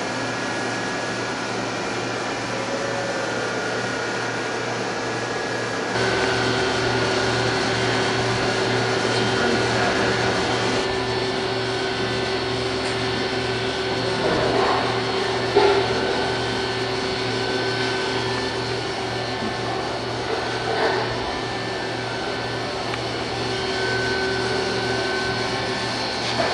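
Daewoo DMV 5025 vertical machining center running with its spindle turning a tool: a steady machine hum, joined about six seconds in by a steady whine. A couple of short knocks come partway through.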